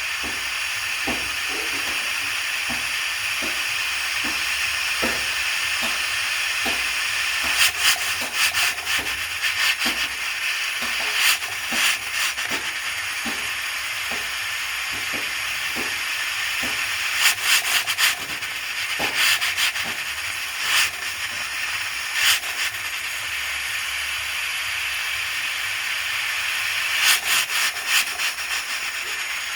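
Pressure cooker venting steam through its valve: a steady hiss with louder sputtering spurts every few seconds, and a light ticking about twice a second in the first part.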